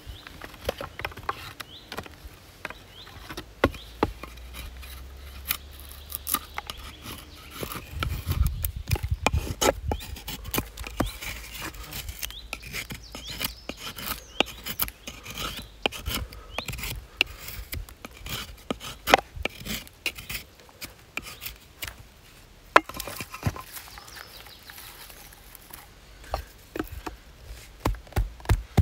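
Knife blade shaving thin curls off a stick of dry kindling to make a feather stick: a run of short scraping strokes, each with a sharp click of the blade on the wood.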